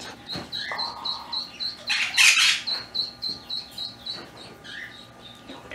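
A rapid series of short, high chirps at one steady pitch, about four a second, with a louder noisy burst about two seconds in.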